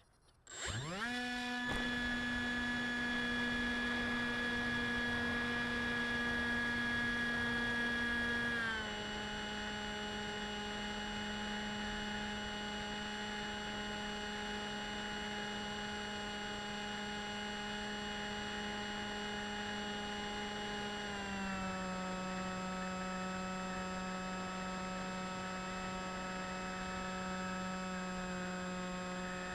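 Electric motor and propeller of a radio-controlled FPV model aircraft, heard from the onboard camera: it spools up quickly in the first second, then runs at a steady whining hum, stepping slightly lower in pitch twice as the throttle is eased back.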